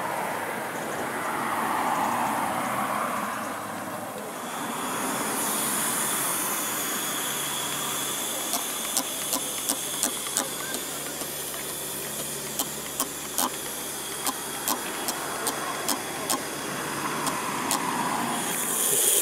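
Coal-fired Roundhouse live-steam model locomotive hissing steam steadily. Through the middle and latter part there is a run of irregular sharp little clicks.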